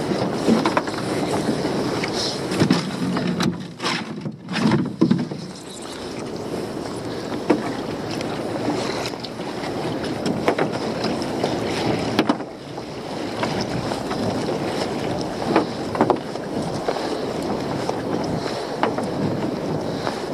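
Wind on the microphone and water lapping around a small metal dinghy while a lobster pot rope is hauled in hand over hand, with occasional knocks and taps on the hull.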